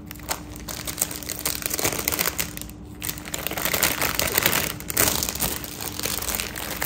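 Plastic jewellery pouches crinkling and rustling as hands pack a necklace away and shuffle through a pile of bagged sets. The crinkling picks up about a second in, eases briefly near the middle and is busiest just after.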